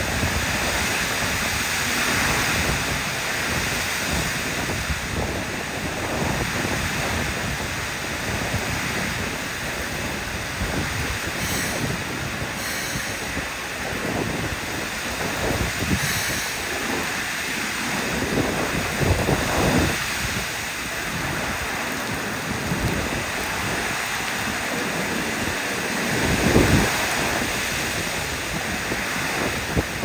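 Very heavy rain hissing steadily, about 50 mm an hour, with a Keikyu 600 series electric train running into the platform and coming to a stop under it. There are a couple of brief louder sounds in the second half.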